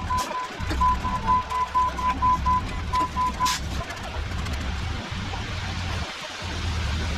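Reverse alarm on a heavy vehicle beeping rapidly over a low engine rumble. The beeping stops about halfway through, leaving the engine and a steady hiss.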